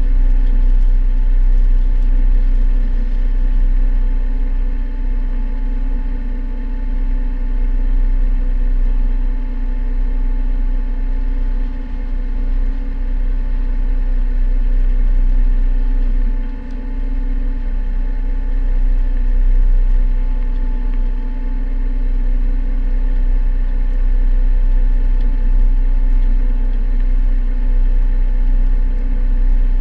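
A sailboat's inboard auxiliary engine running steadily under way, a constant drone over a heavy low rumble.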